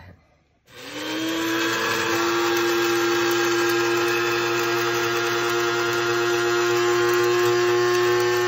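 Electric blade spice grinder starting up a little under a second in, its motor whine rising quickly and then holding steady as it grinds roasted peppercorns into powder.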